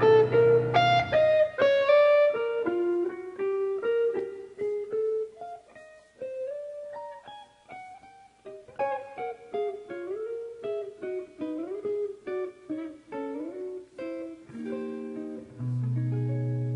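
Clean-toned electric guitar playing a solo jazz improvisation, a fast single-note line with a few bent notes. A piano chord rings out in the first couple of seconds, and a sustained low chord comes in near the end.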